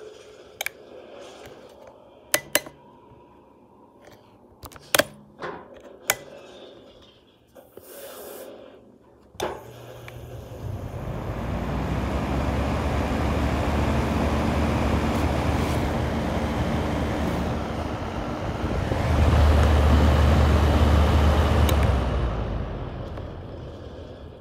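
Electric space heater's fan: a few sharp clicks, then after a click about a third of the way in the fan spins up to a steady whoosh with a low motor hum. It grows louder for a few seconds near the end, then dies down.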